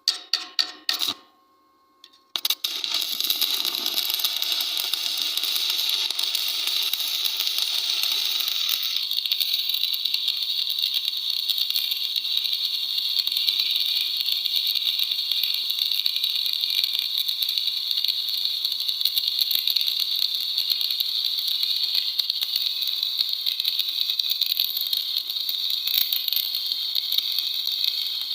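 Stick (SMAW) welding with an E6013 electrode in the flat position: a few sharp taps as the rod is struck, then, about two seconds in, the arc catches and crackles steadily, a dense frying hiss.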